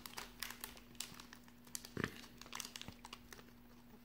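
Plastic cellophane wrapper of a trading-card cello pack crinkling faintly in scattered small crackles as it is handled and opened, with a soft thump about halfway through.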